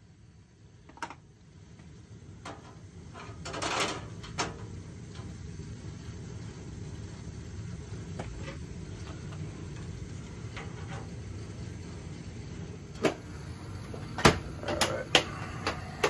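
Williamson GWA-070 gas boiler running with a steady low rumble that builds over the first few seconds, with a brief rushing burst about four seconds in. Several sharp clicks and knocks near the end.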